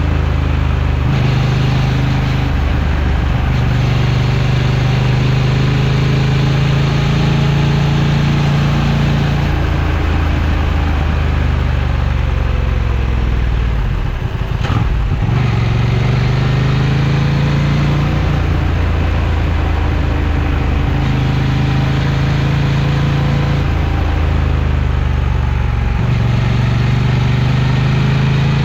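Honda XL750 Transalp's 755 cc parallel-twin engine running steadily, its pitch shifting in steps several times and dipping then climbing again about halfway through.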